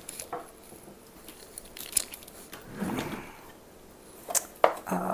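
A wooden spoon stirring a thick ground-beef and tomato sauce in a pot: soft scraping and squelching, with a few sharp knocks of the spoon against the pot, one about two seconds in and two close together near the end.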